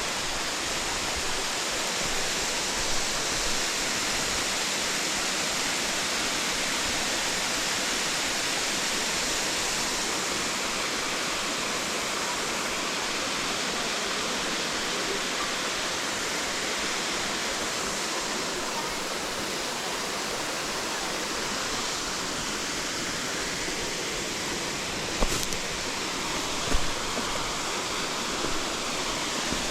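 Steady rush of a waterfall, an even wash of falling water with no change in level. A couple of brief low thumps come near the end.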